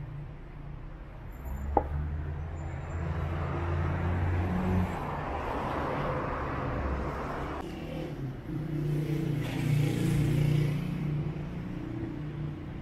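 Street traffic: car engines running and vehicles passing close by, twice swelling louder as they go past, with a sharp click about two seconds in.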